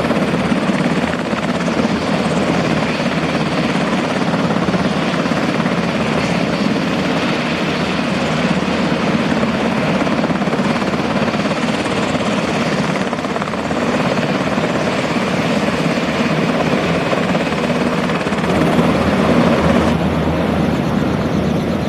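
Helicopter turbine engine and rotor running steadily and loudly, a little louder near the end.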